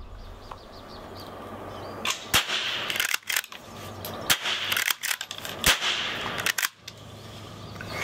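Blaser R8 straight-pull bolt-action rifle in .22 Long Rifle being fired several times, with the sharp clack of the straight-pull bolt being cycled between shots. The string of reports and bolt clicks starts about two seconds in and ends about a second before the end.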